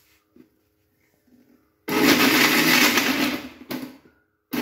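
Crompton Greaves mixer grinder running in short pulses, grinding peeled dates and kanthari chillies in its steel jar: a few light knocks, then one burst of about two seconds starting about two seconds in, a short stop, and a second burst starting near the end.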